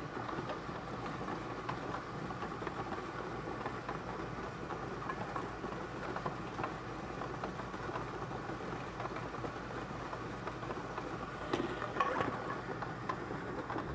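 Bingo ball blower machine running, with plastic balls clicking and rattling against each other and the chamber; the clatter picks up briefly near the end.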